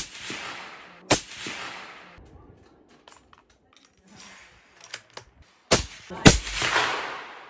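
Four rifle shots, .308 Winchester, two in quick succession at the start and two more a few seconds later, each followed by a long fading echo.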